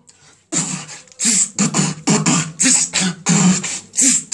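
A man beatboxing into cupped hands, starting about half a second in: a steady beat of vocal kick and snare sounds, roughly two strokes a second.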